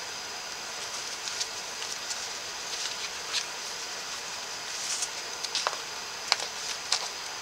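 Soft rustles and light taps of hands tying a ribbon bow on a paper scrapbook folio, over a steady hiss. A few sharper clicks come in the second half, the loudest about six seconds in.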